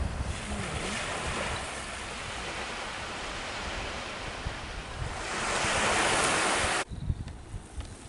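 Small waves breaking and washing onto a sandy beach, with wind buffeting the microphone as low thumps. The surf swells louder about five seconds in, then cuts off abruptly near the end, leaving quieter outdoor air.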